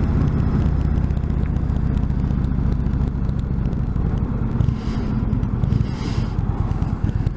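Indian Chieftain motorcycle's Thunder Stroke 111 V-twin running steadily under way, with wind and road noise, heard from the rider's position. The engine note eases off a little about halfway through.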